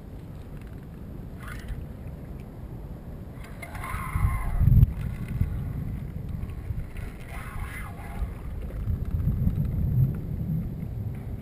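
Water slapping and sloshing against a kayak hull, with wind buffeting the microphone. A louder splash comes about four seconds in, with more surges near eight and ten seconds.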